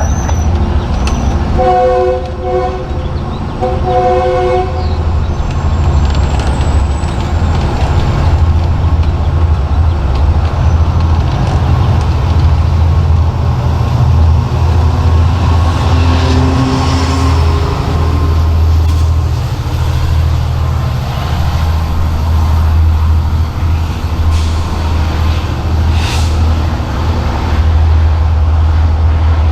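Diesel locomotive engines running with a loud, steady low rumble, and the train horn sounded in two short blasts about two and four seconds in.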